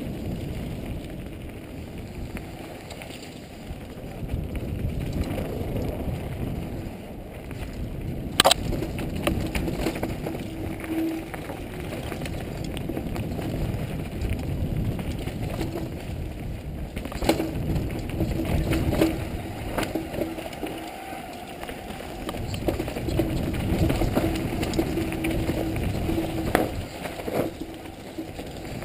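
Mountain bike descending a dirt singletrack, heard from the rider's helmet: rumbling tyre noise over the trail with rattles and small clicks from the bike, and sharp knocks from hits about 8 seconds in and again around 17 seconds.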